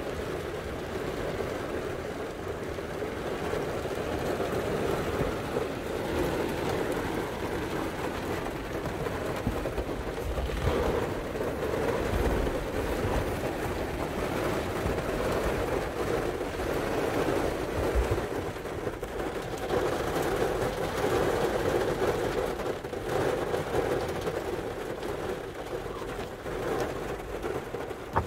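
Steady rush of heavy rain and wind in a severe thunderstorm, heard from inside a car, with deep rumbles of thunder in the middle.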